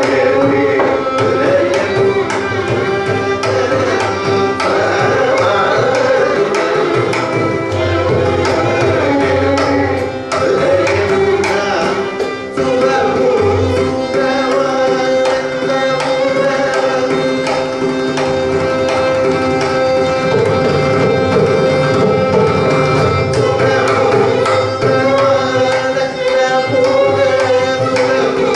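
Live Carnatic music: vocal and violin melody over a steady drone, with mridangam and kanjira strokes throughout.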